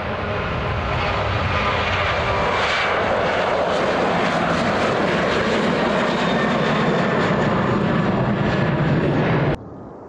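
Boeing 737-800's twin CFM56 turbofan engines at takeoff thrust during lift-off and initial climb, a loud, steady roar that builds over the first couple of seconds. It cuts off suddenly shortly before the end.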